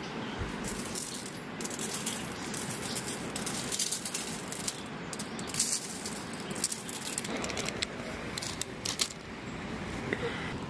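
Plastic spice shaker rattling in quick, irregular shakes as seasoning is sprinkled onto fish fillets on aluminium foil.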